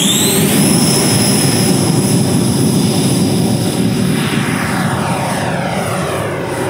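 JETFAN-120 PRO electric ducted fan on an RC jet spooling up to full takeoff power, its whine rising in pitch through the first half second, then holding a steady high whine over a loud rushing of air during the takeoff run and climb. From about four seconds in, the pitch sweeps downward and the sound eases slightly as the jet climbs away.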